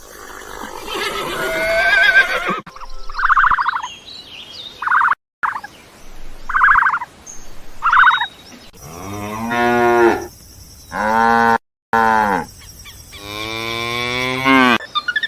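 Cows mooing: two long, low moos in the second half, after a series of shorter, higher animal calls.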